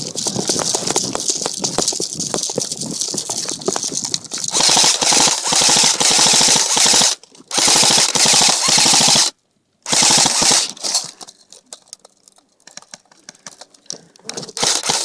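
Airsoft guns firing on full auto: rapid clicking at first, then three loud, long bursts starting about four and a half seconds in, then scattered single shots.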